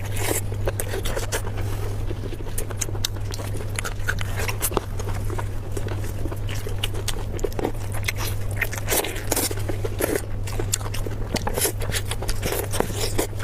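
Close-miked eating of spicy pork belly: irregular wet mouth clicks, bites and crunches of chewing, over a steady low hum.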